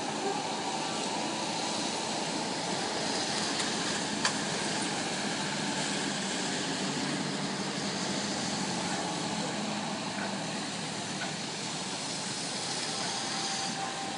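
Steady hiss of rain and vehicle traffic on wet streets, with one sharp click about four seconds in.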